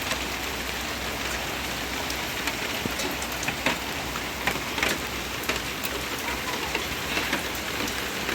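Heavy rain falling steadily, with many scattered sharp ticks of drops hitting close by.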